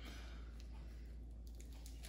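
Faint rustling and a couple of soft clicks from a wiring harness being handled and stripped apart, over a steady low hum.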